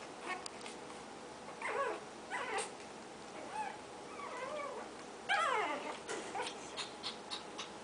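Shih Tzu puppies whimpering and yipping: several short cries that fall in pitch, the loudest a little after five seconds in. A run of light clicks follows near the end.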